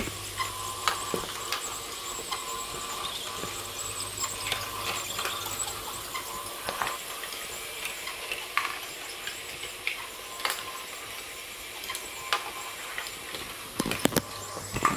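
LEGO Great Ball Contraption running: its electric motors and gear trains whir steadily while small plastic balls click and clatter irregularly through the modules. A cluster of louder knocks comes near the end.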